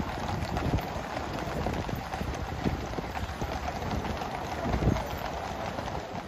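Many horses' hooves clip-clopping on a paved road, with the rumble of horse-drawn gun carriage wheels, merging into a dense continuous patter.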